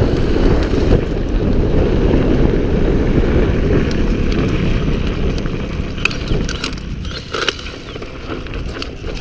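Wind rushing over the camera microphone and tyres rumbling on dirt as an electric bicycle rides fast down a motocross track. The rush eases in the second half, where a run of sharp clicks comes as the chain slips and locks up the derailleur.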